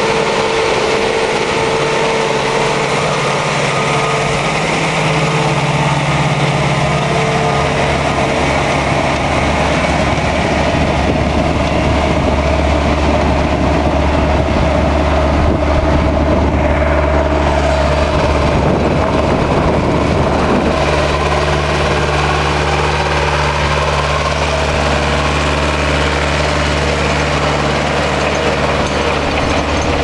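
Zetor Forterra 140 HSX tractor's diesel engine running steadily under load while ploughing.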